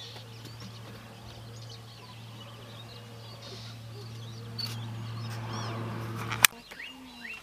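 Birds chirping over a steady low hum. The hum cuts off with a sharp click about six and a half seconds in.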